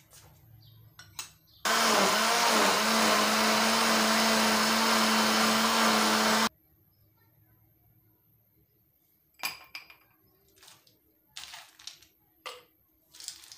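Electric countertop blender running on a jar of cucumber chunks for about five seconds, with a steady motor hum that dips briefly in pitch just after it starts as the blades bite, then stops abruptly when switched off. Later, a few short, light knocks and clinks.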